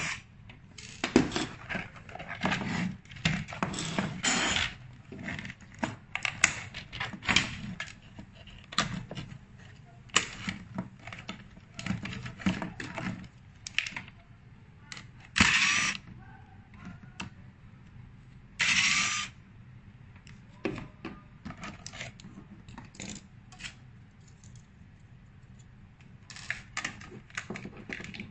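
Irregular clicks, taps and knocks of hands handling the plastic housing, screws and circuit boards of an LED par light. About halfway through come two brief, longer noises a few seconds apart.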